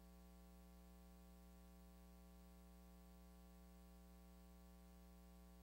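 Near silence: only a faint, steady hum, with no other sound.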